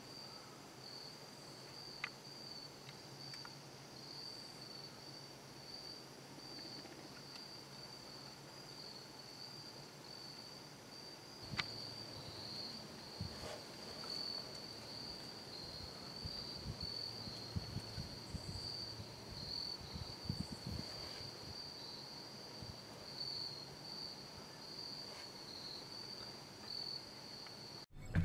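Steady chorus of insects, a continuous high-pitched trill, with a few faint clicks and soft low bumps through the middle.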